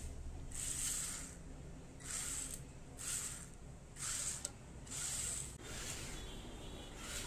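Small yellow plastic DC gear motors of a four-wheel RC car whirring in short bursts, about one a second, as the car is driven back and forth by joystick.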